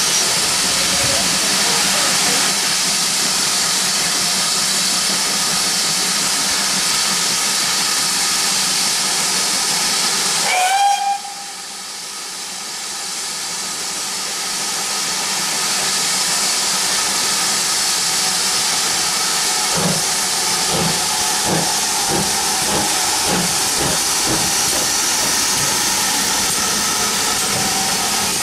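Steam locomotive, the 9400 class pannier tank No. 9466, with a loud steady hiss of escaping steam that stops abruptly about eleven seconds in, just after a short whistle. The hiss then builds again, and in the last third the engine's exhaust beats come in at about two a second, quickening as it starts away with its train.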